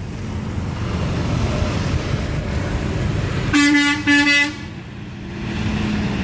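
Semi truck's horn sounding two short blasts, about a second in all, over steady traffic noise.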